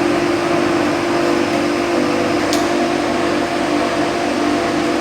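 Food roaster machine running: a steady motor and blower hum with a constant low drone, plus one brief high sound about halfway through.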